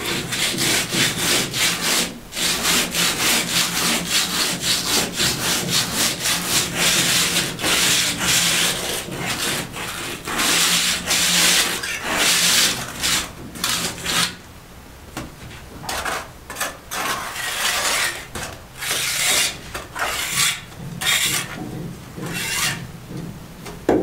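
Cement render being worked by hand on a concrete wall: a plastering float or trowel scrapes across the rough surface in quick back-and-forth strokes. The strokes pause about fourteen seconds in, then carry on more sparsely.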